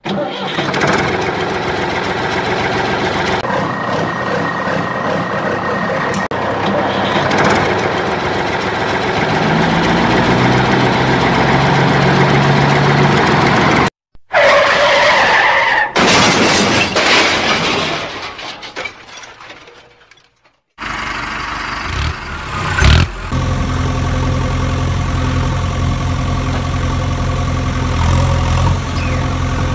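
Engine sounds over a toy construction scene: an engine running and revving up, a short crash-like burst that fades away, then from about two-thirds through a heavy engine idling steadily, with one sharp knock.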